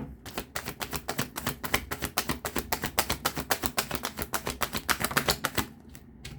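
A deck of tarot cards being shuffled by hand, the cards slapping in a quick, even run of about eight clicks a second for five seconds or so before stopping.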